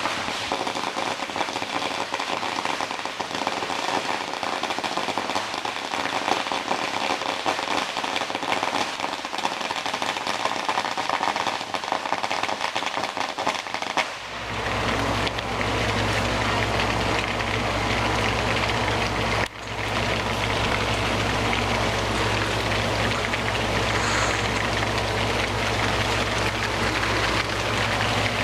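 Steady heavy rain falling. About halfway through, a steady low hum joins it.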